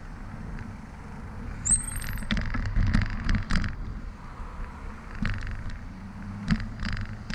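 Bicycle rattling and clattering as it rolls over pavement and the joints and cracks of a concrete sidewalk, with a steady low rumble underneath. A brief high squeak comes about two seconds in.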